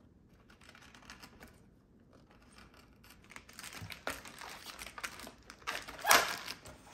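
Clear plastic packaging bag crinkling and rustling as hands pull and handle it, after a few seconds of only faint clicks. It grows louder about halfway through, with one sharp crackle of the plastic near the end.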